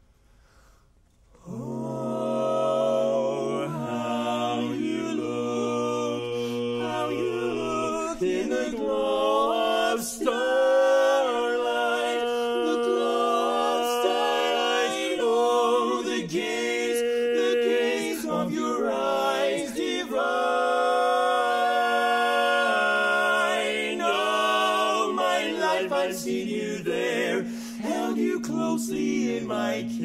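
A barbershop quartet of four men sings a cappella in close four-part harmony, holding sustained chords. The singing starts about a second and a half in, after a brief silence.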